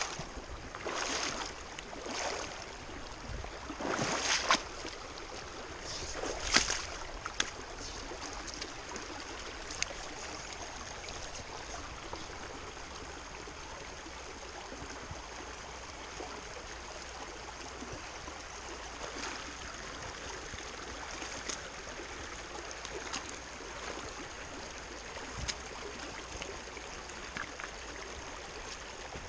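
Shallow, rocky forest stream running steadily, with a few splashing footsteps as someone wades through the water in the first several seconds.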